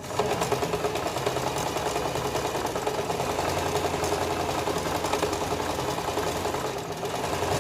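Sewing machine running at a steady speed, stitching a hair weft onto a mesh wig cap. It starts abruptly and keeps an even, fast stitching rhythm.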